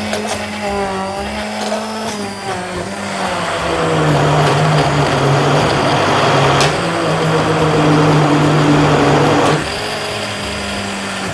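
Hand-held immersion blender running in a pot of lentil soup, puréeing it. Its steady motor hum drops in pitch and grows louder about four seconds in, then rises back in pitch shortly before the end.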